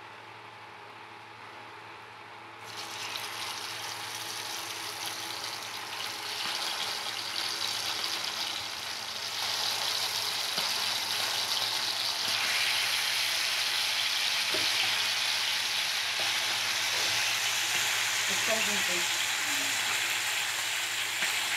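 Pomfret fish shallow-frying in hot oil in a pan. The sizzle starts suddenly a little under three seconds in as the fish goes into the oil, then grows louder over the next several seconds and holds as a loud, dense sizzle.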